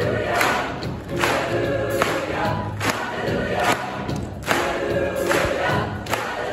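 Large mixed choir singing an upbeat gospel-style piece with band accompaniment (piano, electric guitar, drums), with strong accents on the beat about every 0.8 seconds.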